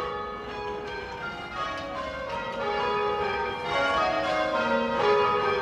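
Church tower bells rung by hand with ropes in rounds. Each run steps down in pitch from the highest bell to the lowest, and every bell keeps ringing into the next strike.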